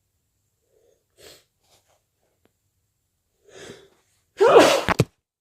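A person with a cold sneezing once, loudly, about four and a half seconds in, after two faint catching breaths building up to it.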